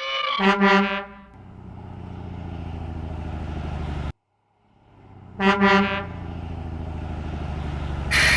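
Truck horn sound effect honking briefly, followed by a steady low truck engine running that cuts off suddenly; the honk-and-engine pair plays twice. A short burst of hiss comes near the end.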